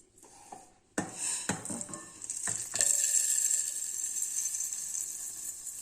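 Roasted urad dal and rice being tipped into a mixer-grinder jar: a few knocks against the jar, then a steady hiss of dry grains pouring in.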